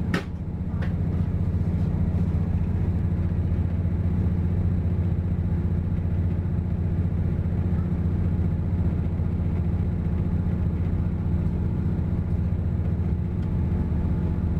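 Steady low rumble and hum of an intercity passenger train running at speed, heard from inside the coach. A sharp click comes right at the start, and a fainter one follows just under a second in.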